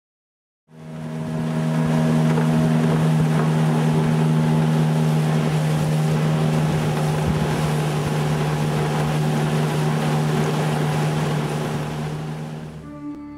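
Outboard motor of a wooden river launch running at a steady cruising pitch, over a rush of wind and water. It starts within the first second and fades out near the end.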